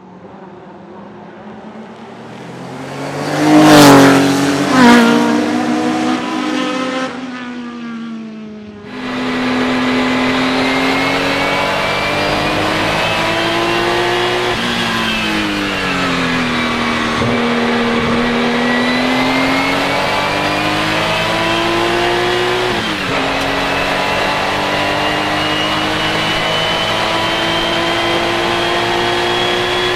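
Porsche 935 K3 race car's turbocharged flat-six at full throttle. It first passes close by, swelling to a peak and dropping in pitch, then runs steadily and loudly, its pitch climbing and falling as it works up through the gears, with a sharp drop about 23 seconds in.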